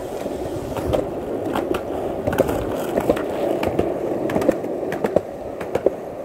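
Skateboard wheels rolling fast on a concrete sidewalk: a steady rumble broken by sharp clacks, two or three a second, as the wheels cross the joints between the slabs.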